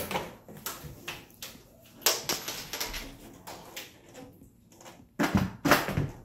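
A double-hung window sash knocking and rattling against its frame as it is tilted and worked out of the window. Irregular clicks and knocks, with two louder thumps a little after five seconds in.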